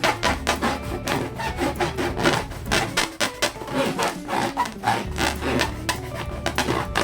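Hands rubbing latex balloons: a quick, uneven run of short rubbing strokes, about three or four a second.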